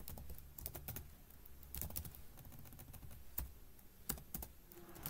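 Computer keyboard being typed on: scattered short runs of key clicks with uneven gaps.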